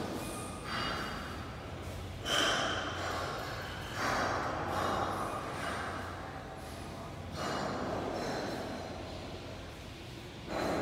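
Edible-nest swiftlet calls: harsh, noisy chirps coming in bursts every second or two, over a low steady hum.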